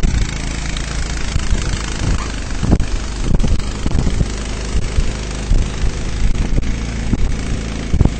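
Hoot 6x6 amphibious ATV's engine running steadily as the machine swims, with irregular low thumps over it.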